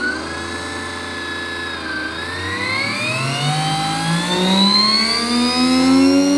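A DC motor belt-driving a second DC motor as a dynamo, spinning up: a high whine that holds steady, dips briefly about two seconds in, then climbs steadily in pitch as the speed controller is turned up.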